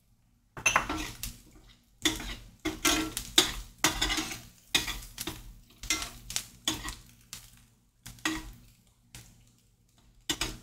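A spoon scraping and stirring chopped onions and garlic around a stainless steel frying pan, in repeated irregular strokes about one or two a second.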